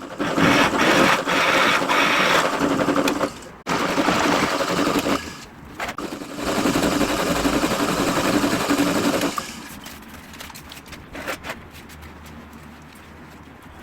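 A workshop power tool working metal in long noisy runs with a steady hum, pausing briefly twice and stopping about nine seconds in, followed by quieter scattered clicks and handling.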